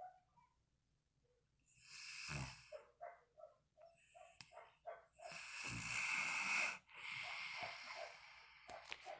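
A sleeping dog snoring: three long raspy breaths, with a run of short quick snuffles between the first and second.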